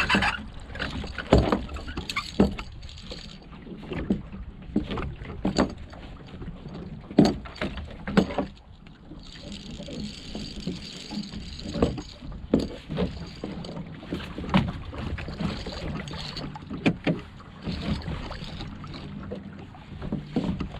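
Irregular knocks, clunks and rattles from a small plywood sailboat's hull and gear as its sail is hoisted and the sailor moves about the boat, over a steady low hiss of wind and water.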